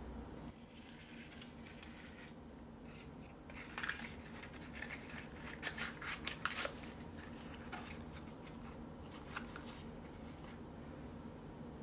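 Hands handling small paper gift boxes and their clear plastic packaging: a run of light scrapes and clicks from about four to seven seconds in, a couple more later, over a faint steady hum.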